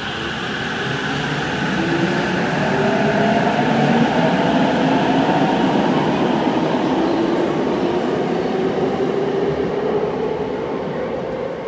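Electric train moving along the platform: the whine of its motors in several slowly shifting pitches over the rumble of wheels on rail, swelling over the first few seconds and then easing off.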